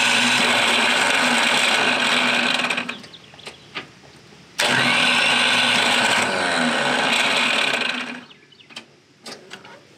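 Ford 3000 tractor's starter motor whirring in two long bursts, the second starting about four and a half seconds in, without turning the engine over. It is really not supposed to sound like that: the starter's worn pinion is not engaging the flywheel, which the owner guesses comes from a weak battery.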